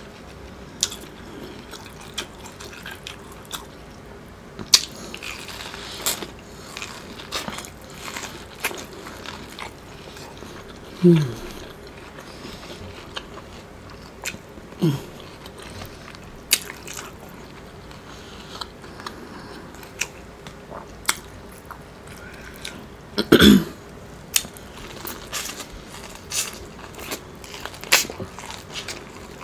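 Close-up eating sounds of Mexican street corn being bitten and chewed off the cob: many wet mouth clicks and smacks, with a few short sounds that fall in pitch, the loudest about two-thirds of the way through.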